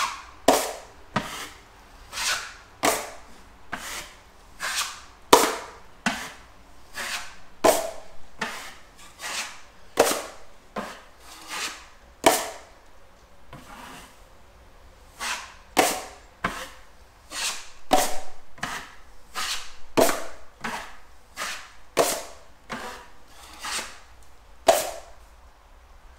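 Drywall knife scraping joint compound across drywall in quick repeated strokes, irregular at about one to two a second.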